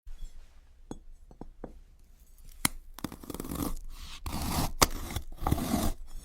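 A few sharp clicks, then a run of louder, crisp scraping and crunching strokes, each lasting about half a second to a second.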